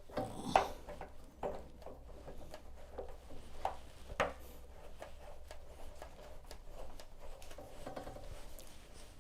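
Hands and tools handling water-heater plumbing as a line is reconnected: scattered knocks and clicks, the loudest about half a second in and about four seconds in, over a faint low hum.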